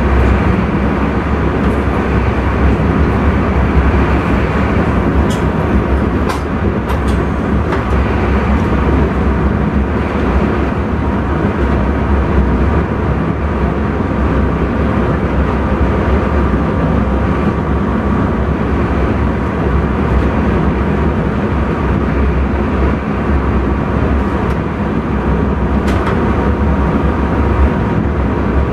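Intercity train running along the line, heard from inside the driver's cab: a steady rumble with a faint steady hum and a few short clicks.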